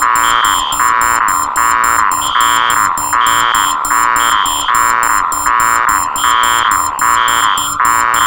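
Four electronic alarms sounding at once, layered into one continuous din. A shrill fast beeping runs on top of lower tones that pulse a little more than once a second.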